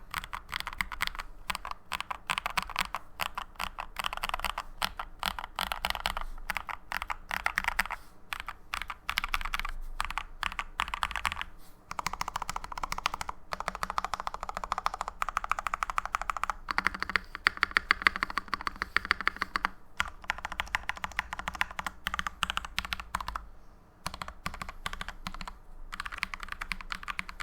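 Keychron V1 mechanical keyboard typed on quickly in runs, its lubed and filmed NK Dry Black linear switches on a steel plate under PBT keycaps giving dense, muted clacks. There are short breaks between the runs of typing, including one at about 12 seconds and one at about 24 seconds.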